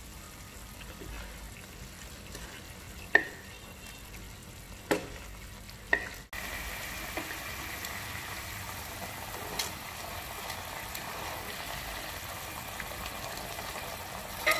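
Sauce sizzling in a wok around a whole fried grouper, with a few sharp clicks as metal tongs and a wooden spatula knock against the pan while the fish is turned. About six seconds in the sound cuts off for an instant, and the sizzling comes back louder and steadier.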